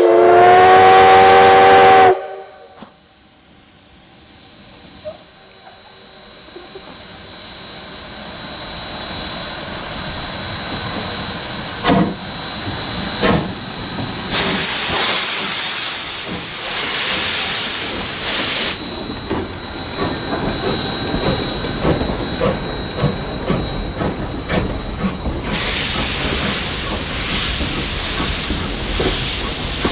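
Steam locomotive whistle blowing for about two seconds, several tones sounding together that rise into pitch and then cut off sharply. The locomotive then grows steadily louder as it approaches, with long bursts of steam hissing about halfway through and again near the end.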